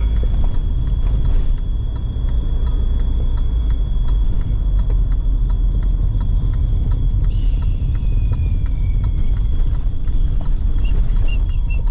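Steady low rumble of a vehicle travelling on the road.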